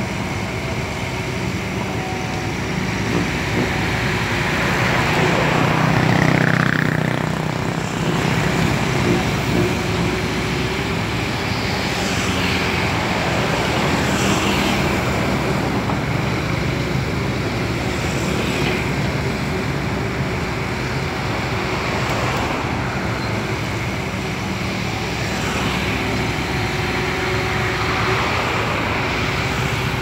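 CAT 320D hydraulic excavator's six-cylinder diesel engine running steadily under work. Road vehicles pass close by several times, the loudest swelling and fading about six seconds in.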